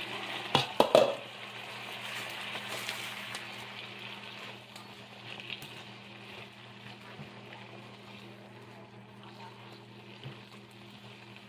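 Marinated mushrooms frying in olive oil in a skillet, an even sizzle that slowly grows quieter. A few sharp knocks come about half a second to a second in.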